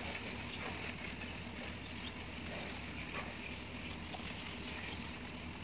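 Steady background noise with faint scraping and a few light taps from plastering tools working wet cement render on a wall.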